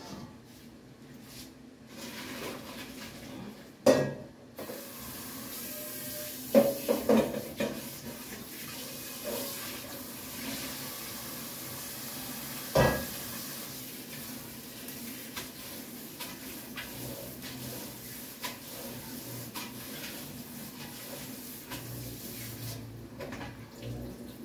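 Water running and pouring into a kitchen sink as a pot of boiled spaghetti is drained, steady for most of the time. A metal pot clanks sharply about four seconds in, several times a few seconds later, and once more around the middle.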